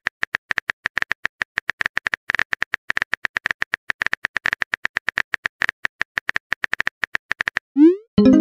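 Keyboard typing sound effect: a fast, even run of sharp clicks, about ten a second. Near the end it stops and a short rising whoosh leads into a chime, the message-sent alert.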